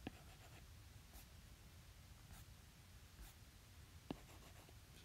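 Near silence with a few faint, short taps about once a second: an Apple Pencil tip tapping and sliding on an iPad's glass screen while pages are scrolled.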